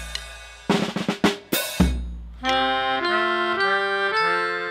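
Background music: drum hits ending in a quick drum fill, then held chords on a reedy keyboard-like instrument, changing about every half second.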